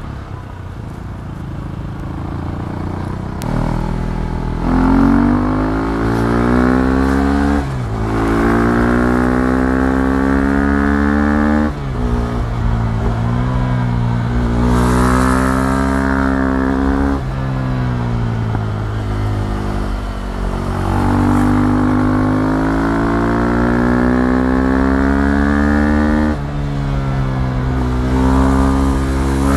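KTM 390 Duke's single-cylinder four-stroke engine running under throttle while riding, its note climbing and holding, then dropping abruptly about six times as the revs change.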